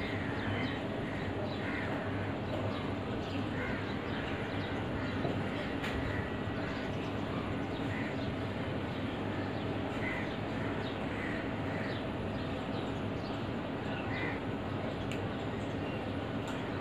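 House crows giving scattered short caws over a steady background rumble.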